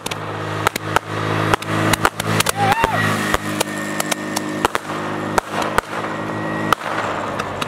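Firework going off in a rapid, irregular string of sharp crackling pops, with a short whistle about three seconds in, over the steady hum of a car engine running.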